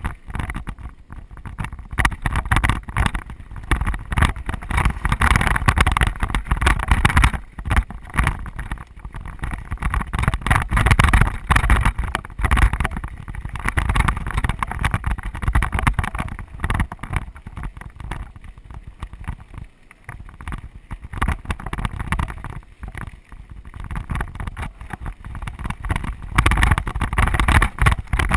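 Wind buffeting a mountain biker's helmet- or body-mounted camera microphone as the bike rolls over rocky dirt singletrack, with steady rattling and knocking from the bike and tyres on the stones. The noise eases off for a few seconds past the middle, then picks up again near the end.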